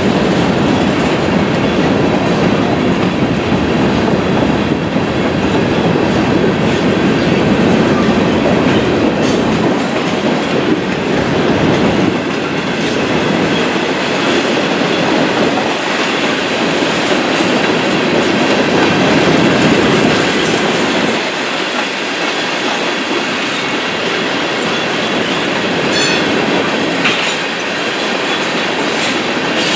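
Freight train of covered hopper cars rolling past at speed: a steady loud rumble and rattle of steel wheels on rail, with the clickety-clack of wheels over rail joints.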